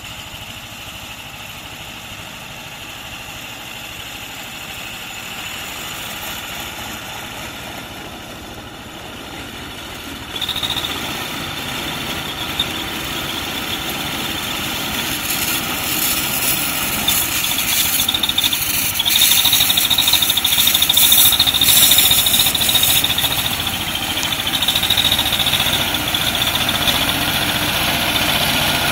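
Ursus C-330 tractor's two-cylinder diesel engine running under way, growing louder as the tractor comes closer. About ten seconds in, a steady high whine joins it.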